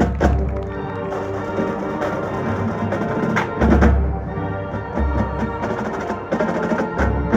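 High school marching band playing, with held wind chords over sharp percussion strikes and deep bass drum hits.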